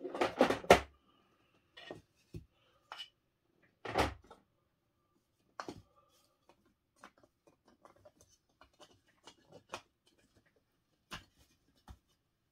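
3D-printed plastic terrain tiles clattering as a hand rummages through them in a plastic storage tub, with a second clatter about four seconds in. Then scattered light clicks and taps as the tiles are fitted together into the layout.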